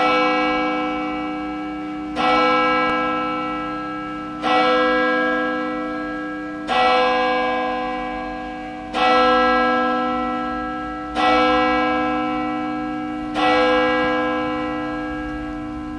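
A large bell tolling seven times, one stroke a little over every two seconds, each stroke ringing on and fading into the next.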